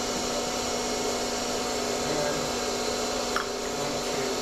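A small electric motor running steadily, a constant hum with a few fixed tones, and a light click about three and a half seconds in.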